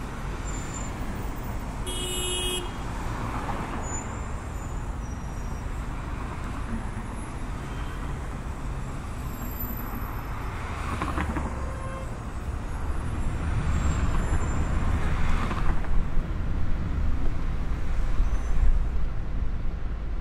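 City street traffic noise with passing vehicles and a short horn toot about two seconds in; in the second half a louder low rumble of engine and road noise builds.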